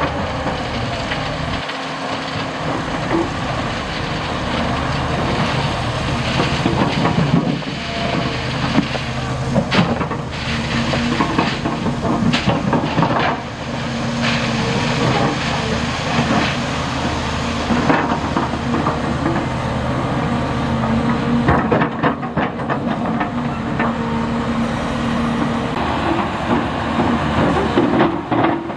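Heavy diesel construction machinery running steadily, with scattered clanks and knocks from the work.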